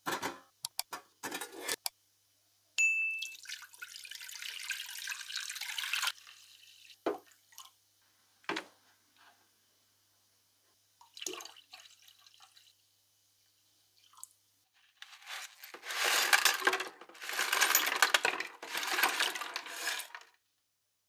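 A stainless-steel ultrasonic cleaner tank is handled with a few knocks, then liquid is poured into it for a few seconds. Near the end a tray of rusty metal parts is tipped into the liquid, splashing and clinking for several seconds; this is the loudest part.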